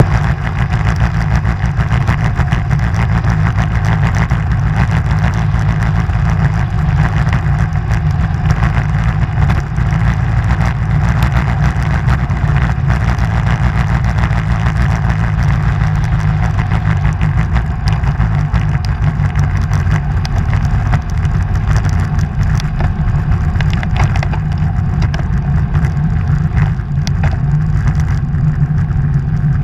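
Steady wind rush buffeting an action camera's microphone on a moving road bike, with tyre noise on the asphalt and scattered small knocks from the road.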